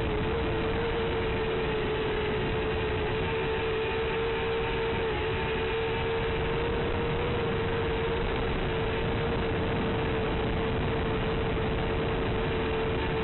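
Steady static hiss with a constant low hum underneath: the noise on the audio channel of an analog FPV video link. It does not follow the quad's throttle.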